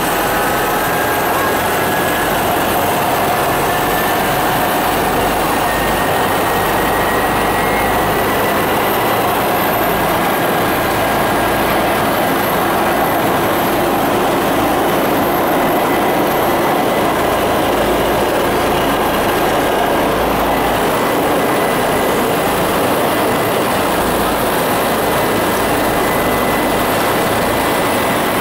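Helicopter turbine engine and rotor running steadily, heard from inside the cabin: a loud, even rush with a thin, steady high whine over it.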